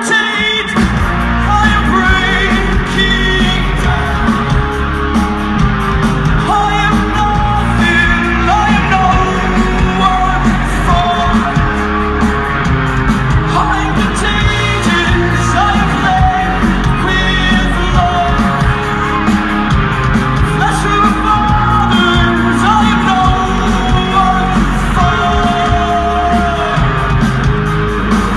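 Live rock band with a singer, guitar, bass and drums playing loud through an outdoor festival PA, heard from within the crowd. The full band with its heavy bass comes in just after the start.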